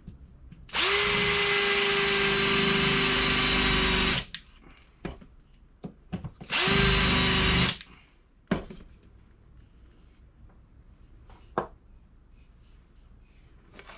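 Electric drill spinning a roll-crimp tool against a shotgun shell to close its crimp, in two runs: one of about three seconds and a shorter one of about a second, each spinning up and holding a steady pitch. A few small clicks follow.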